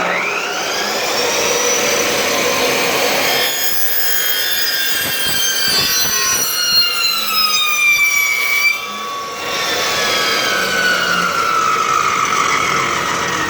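Power saw cutting through a quarter-inch hydraulic hose. The motor starts abruptly with a loud whine whose pitch sinks as the blade bites into the hose. It dips briefly about nine seconds in, then goes on, falling again.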